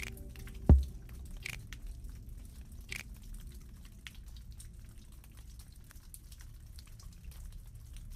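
A single low thump about a second in, then faint scattered ticks and scratches of a pen writing on paper on a desk, over a low steady room hum.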